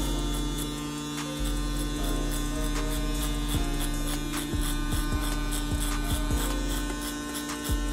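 Caliber cordless hair clipper running without a guard, its blade cutting short hair as a fade is blended up the back of the head; a steady electric hum.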